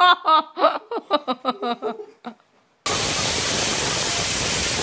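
A young woman's high voice in quick, excited bursts for about two seconds, then it breaks off. About three seconds in, a loud steady hiss starts abruptly and holds level.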